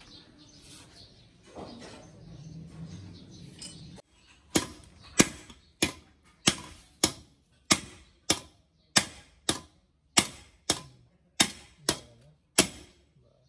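A long steel rod is rammed down repeatedly onto the end of a Mahindra Bolero 4x4 front differential's pinion shaft to drive it out of the housing. There are about fourteen sharp metal-on-metal clanks, a little more than one a second, starting about four seconds in, each ringing briefly.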